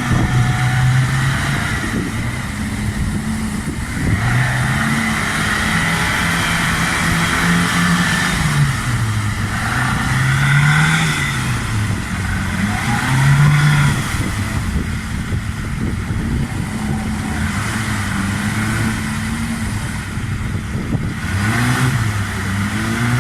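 Off-road 4x4's engine revving up and down over and over, its pitch rising and falling every second or two. Onlookers wonder whether the clutch has gone.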